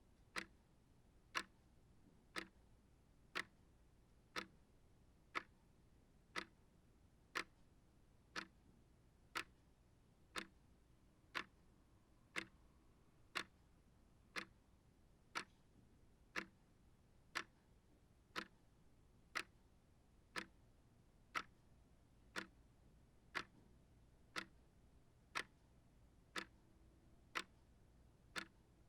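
Small shelf clock ticking steadily, about one sharp tick a second.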